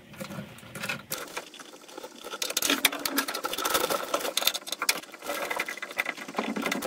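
Quick small metallic clicks and rattling as a screw is fumbled into place and started with a nut driver on a furnace flame sensor's mount, metal tapping against the sheet metal. The clicking gets busier and louder about two seconds in.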